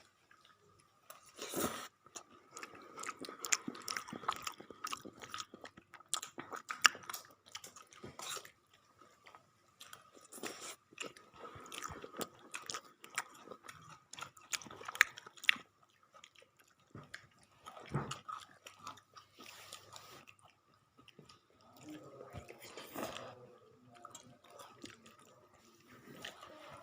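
A person chewing and crunching crisp food up close, likely egg toast eaten with crunchy fried snacks such as chanachur and jhuri bhaja. The irregular crackling bites come thickly at first and grow sparser in the second half.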